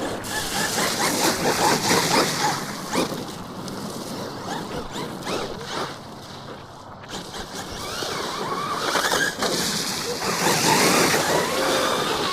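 Electric RC car driving through mud and puddles, splashing and sloshing as it goes. Its motor whine rises and falls in pitch in the second half.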